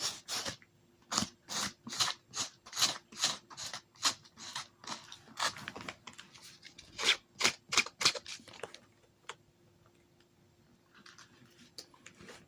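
Grit side of a nail file rasping in quick short strokes, about two or three a second, over paper towel stuck to dried fabric glue on a purse clasp, sanding it away. The strokes stop about three quarters of the way through.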